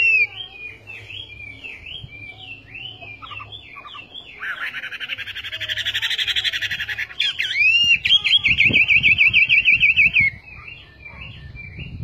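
Chinese hwamei singing a varied song of whistled notes and glides. About four seconds in it breaks into a dense rapid rattle, then a loud, fast warbling trill follows about eight seconds in and stops abruptly two seconds later.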